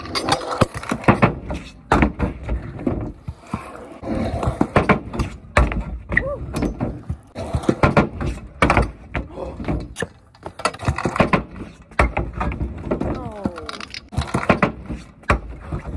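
Skateboard rolling on a concrete driveway, with repeated sharp knocks and thuds as the board hits the ground and a plywood quarter-pipe ramp.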